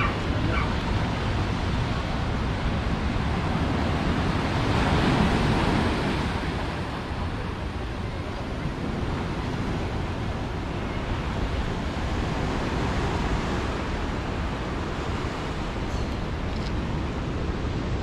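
Ocean surf washing onto a black-sand beach and lava rocks, swelling louder as a wave breaks about five seconds in.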